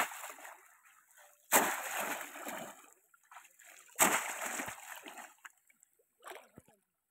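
A bamboo polo fish trap is plunged down into shallow floodwater again and again to pin fish under it. Three heavy splashes come at the start, about a second and a half in, and about four seconds in, each trailing off into sloshing water, with a smaller splash near the end.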